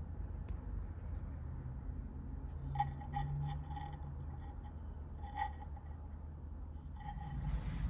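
Glass seed beads of a beaded geometric form clicking and rubbing softly as it is turned and flexed in the hands, over a steady low hum. Three brief ringing tones come about 3, 5½ and 7 seconds in.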